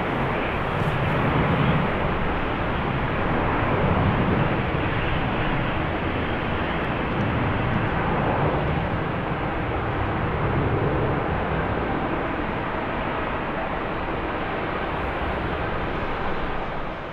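Jet airliner engine noise, a steady rush, with gusty wind rumbling on the microphone in swells every second or two. The sound fades away at the very end.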